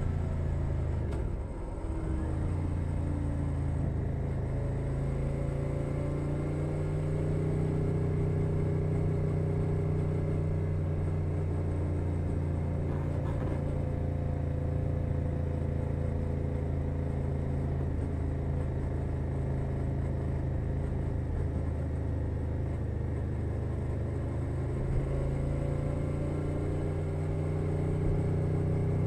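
Suzuki SV650 motorcycle's 645 cc V-twin running through a LeoVince Nero aftermarket exhaust, cruising at a steady engine speed. Its note dips briefly about two seconds in, then holds steady, picking up a little near the end.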